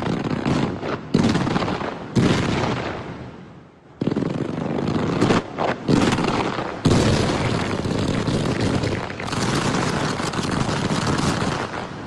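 Fireworks firing in rapid salvos of dense crackling bangs. Fresh volleys break in suddenly about every one to three seconds, dipping in between, and the sound fades away at the very end.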